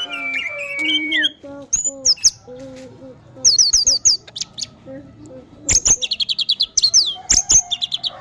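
Orange-headed thrush singing a varied, continuous song: a long whistled note, then fast runs of repeated high notes and falling whistles broken by sharp clicks. It is the bird in full, sustained song, the state bird-keepers call 'teler'.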